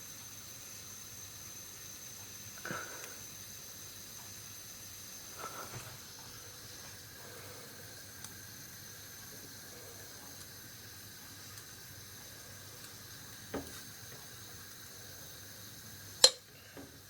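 Water boiling in the bottom boiler of a Bialetti Mukka Express stovetop cappuccino maker: a steady faint hiss, not yet spraying, with a few soft knocks. A sharp click near the end is the loudest sound.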